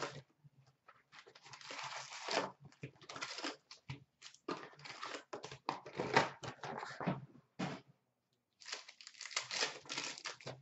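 Foil trading-card pack wrappers crinkling as the packs are handled and stacked, then torn open, in irregular bursts of rustling with short pauses.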